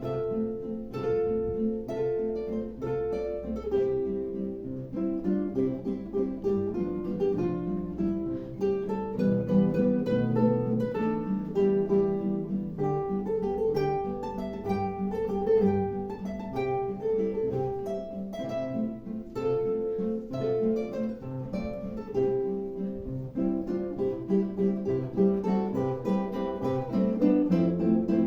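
Classical guitar music: plucked melody over chords, played continuously.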